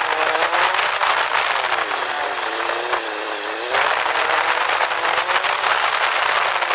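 Honda Verza 150 single-cylinder motorcycle engine running on the move, its pitch rising and falling with the throttle, under heavy wind rush on the microphone.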